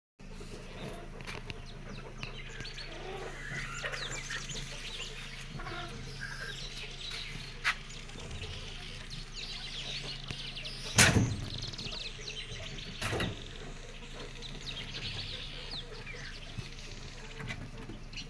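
Chickens clucking and small birds chirping over a low steady hum. A sharp knock comes at about 8 seconds, a louder thump at about 11 seconds and another knock about two seconds later.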